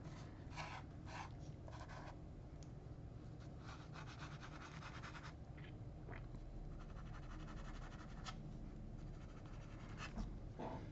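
A #2 HB graphite pencil scratching across drawing paper in short sketching strokes. A little past the middle comes a run of quick back-and-forth hatching strokes.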